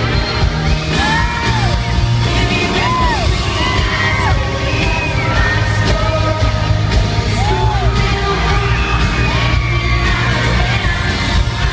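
Live pop concert in a large hall: an amplified band playing, with fans screaming and whooping over it.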